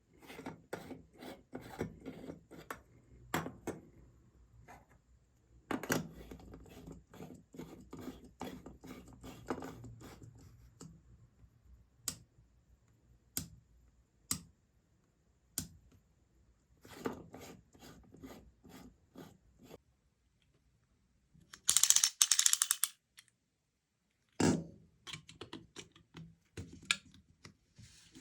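Small hard parts being handled and worked by hand: irregular clicks, rattles and scraping, with one brief, loud, harsh burst of noise late on.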